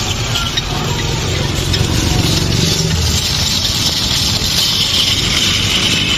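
Motor-driven ice-shaving machine running and grinding a block of ice into shaved ice for gola: a steady motor rumble under a gritty scraping hiss, a little louder from about two seconds in.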